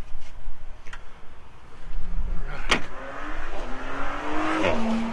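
A Ford Bronco Sport's liftgate slammed shut about halfway through, a single loud thud. Then a vehicle engine accelerates, its pitch rising, dropping once as it shifts gear, and rising again.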